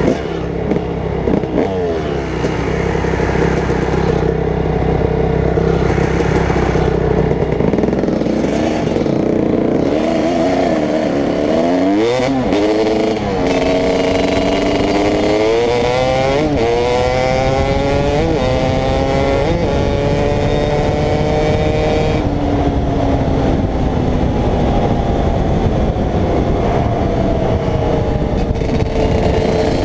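Dirt bike engine heard from the rider's own bike: it runs low and steady at first, then accelerates through several gears about ten to twenty-two seconds in, its pitch climbing and dropping back at each shift, before settling into a steady cruise. Wind and road noise rush on the microphone throughout.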